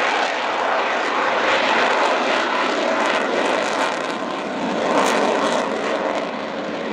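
Avro Vulcan XH558 flying past in a display, its four Rolls-Royce Olympus turbojets making a steady rushing jet noise that dips slightly about four seconds in.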